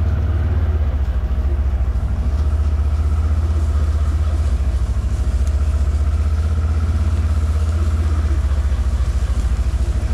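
Side-by-side utility vehicle's engine running steadily at low speed, heard from on board as a loud, low, even throb.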